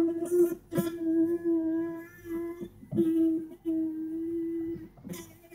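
Motorbike electric disc horn buzzing at one steady pitch in uneven spurts, cutting in and out with clicks as its contact points are touched and worked.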